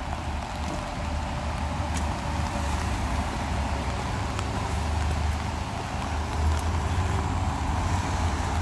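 Car engine running close by as the car creeps across a wet cobbled street: a steady low rumble under a hiss of street noise.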